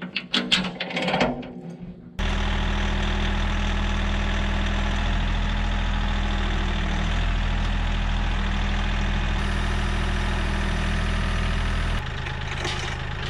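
Steel chain clinking as it is hooked onto a tractor's loader bucket for about two seconds, then a compact diesel tractor engine running steadily. Near the end the engine sound drops a little in level.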